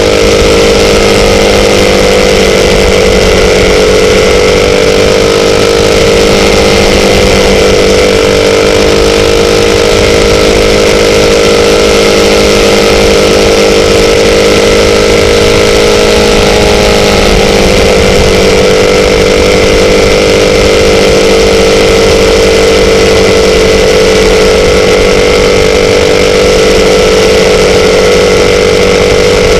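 Motorcycle engine running steadily and loud, its pitch holding nearly even with slight dips and rises.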